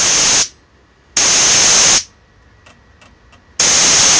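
Three short blasts of compressed air hissing from an air hose nozzle, each under a second long, bleeding down the tank of a homemade air compressor so that its pressure switch cuts the pump back in.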